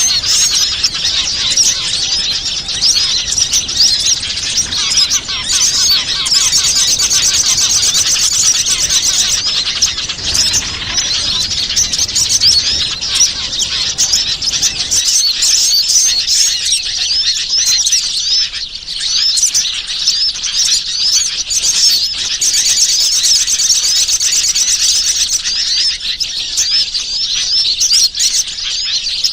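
Many small wild songbirds chirping and twittering densely and without a break, calls overlapping in high rapid trills: a bird-lure recording played to draw in small birds.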